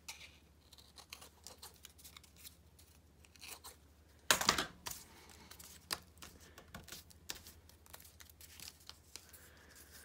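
Light rustles and small taps of cardstock pieces being handled and pressed on a craft table, with one louder, longer paper rustle about four seconds in.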